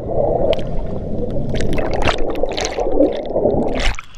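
Churning bubbles and water from a person's plunge into a swimming pool, heard muffled through a submerged GoPro: a dense bubbling rush with scattered sharp pops. It cuts off abruptly near the end as the camera comes out of the water.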